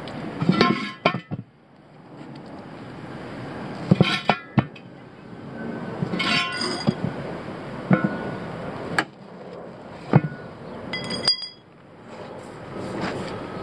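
Steel tire irons clinking and clanking against a steel wheel rim and against each other while a tire bead is worked on by hand. The knocks come singly every second or two, with a brief ringing clang near the end.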